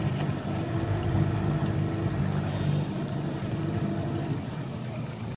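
Boat engine running steadily while the boat is underway, a constant low hum.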